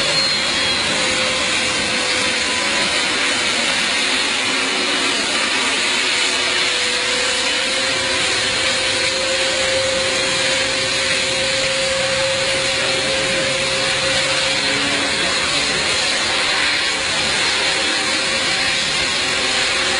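Airplane engine running steadily: an even, unbroken roar with a strong high hiss and a faint held tone that drifts slightly higher in the middle.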